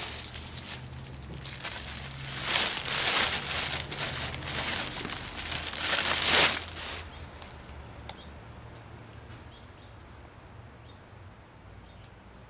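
Clear plastic bag crinkling and rustling as a boot is pulled out of it. It dies down about seven seconds in, leaving a few faint clicks.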